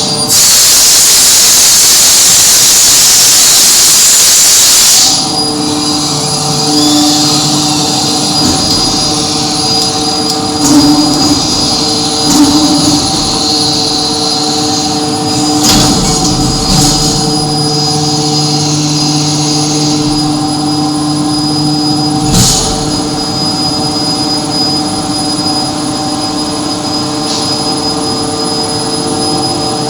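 Blacksmith's forge running with a steady hum and roar, after a loud hiss that cuts off about five seconds in; a few scattered knocks come through later.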